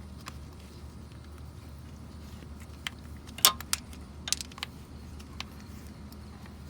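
Metal hand tools clinking and rattling in a few scattered knocks, the loudest about three and a half seconds in, over a low steady hum.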